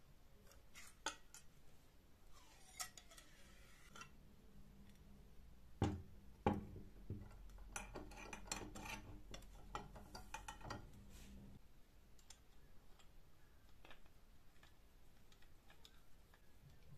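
Light metallic clicks and knocks of hand-pump parts being handled and fitted together: the piston rod in the steel barrel, the metal foot bracket and a nut on the handle bolt. The loudest are two knocks about six seconds in, followed by a run of quick light ticks that stops a few seconds later.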